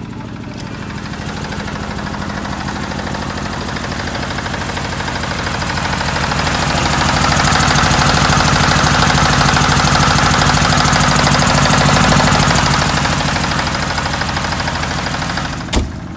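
10 kW diesel generator set in a soundproof canopy running steadily. It grows louder in the middle while the canopy door is open on the engine and alternator, then eases off. One sharp knock comes near the end.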